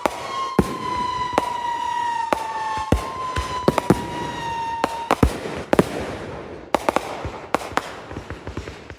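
Consumer fireworks going off: a rapid run of bangs and crackling reports, over a long high whistling tone that slowly drops in pitch and stops about five seconds in.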